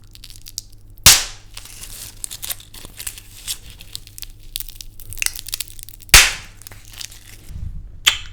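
Sticks being snapped close to the microphone: two loud sharp cracks about five seconds apart, with crackling and crunching of wood in between and a short click near the end.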